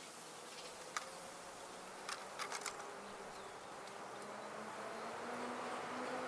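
A flying insect buzzing close by, its hum wavering in pitch and growing louder toward the end, over a steady background hiss. A sharp click comes about a second in, and a quick run of clicks a little after two seconds.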